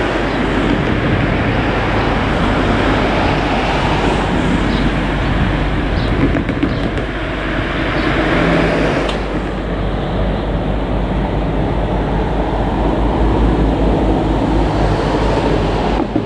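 Forklift engine running steadily while it lifts pallets out of a sliding-wall freight wagon, with a few light knocks of the load being handled.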